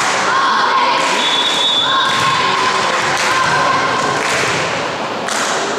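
Girls' high voices chanting and calling in a repeated rhythm in a sports hall, with a few thuds of a volleyball.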